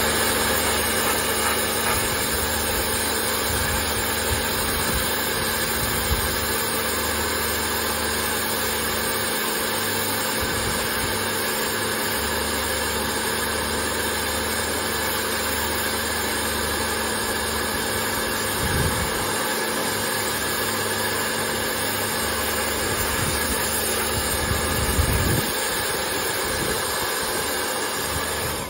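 Pressure washer running steadily, its wand spraying a high-pressure jet of water at the base of a tank.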